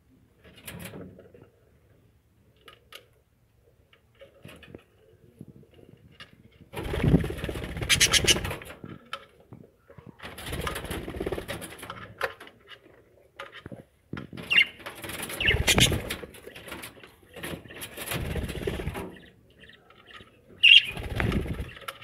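Budgerigars in a nest box, adults and chicks, calling in harsh chirping bursts of a second or two, five times over the last two-thirds, after a quiet stretch.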